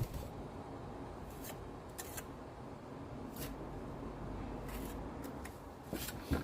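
Scattered light scrapes and clicks of hand-tool work, about half a dozen, over a low steady rumble.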